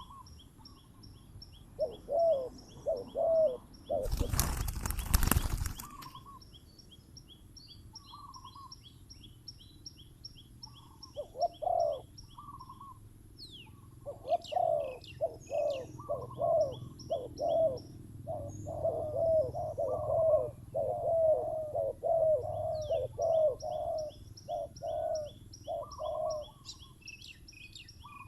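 Spotted doves cooing in repeated phrases of low, wavering notes, denser in the second half. A fast, steady series of thin high chirps from another small bird runs behind them. About four seconds in, a loud burst of noise lasts about two seconds, likely wing flapping.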